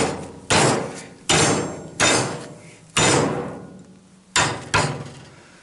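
Heavy club hammer striking a 10 mm steel rod clamped in a bench vise to bend it into a hook: six hard blows about a second apart, each fading away after the hit, the last two close together.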